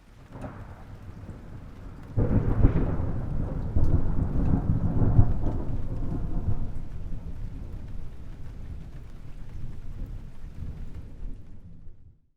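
Thunder rumbling low and deep. It jumps loud about two seconds in, rolls heavily for a few seconds, then slowly dies away and cuts off just before the end.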